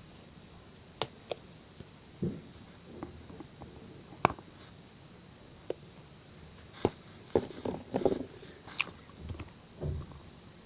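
Homemade slime being handled and played with: scattered small clicks, pops and soft squelches. The sharpest pop comes a little over four seconds in, and a cluster of squishy sounds follows around seven to eight seconds.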